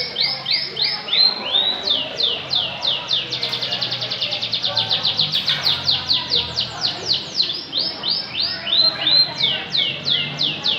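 Canary singing a continuous song of rapid trills: phrases of sharp, high falling notes repeated many times, each phrase at its own speed, with a very fast run in the middle.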